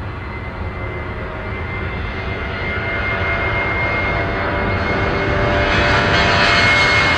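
Airbus A320-232's IAE V2500 turbofan engines at takeoff power during the takeoff roll: a steady jet rumble and hiss with a high whine, growing steadily louder as the aircraft closes in.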